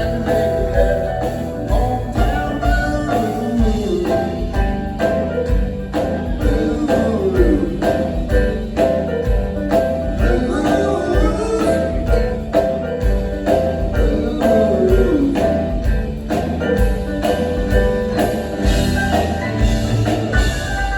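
Live rock band playing a blues-rock song: a drum kit keeps a steady beat, about two hits a second, under electric guitars and singing.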